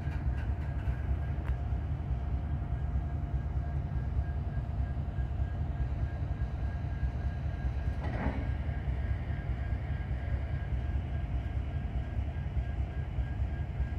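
Freight cars rolling past close by, covered hoppers and tank cars running over the rails with a steady low rumble and a faint steady whine over it. A brief burst of noise about eight seconds in.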